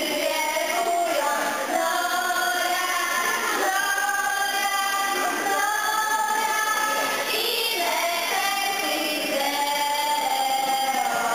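A small group of girls singing a song together, holding long notes.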